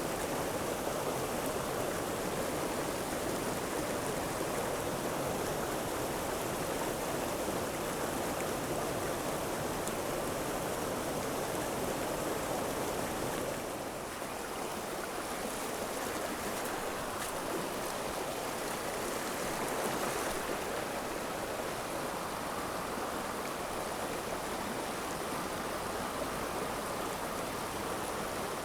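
Mountain creek water rushing steadily, easing a little about halfway through.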